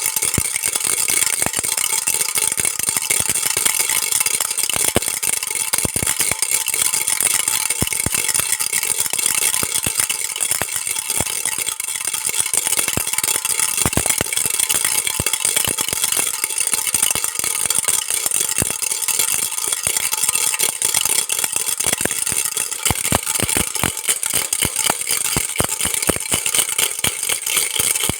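Baby rattle being shaken steadily, a fast, continuous clatter.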